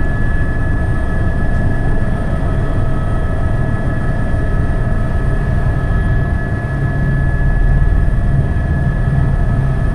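Helicopter in a hover, turning right: steady rotor and engine noise with a constant high-pitched whine over a heavy low rumble.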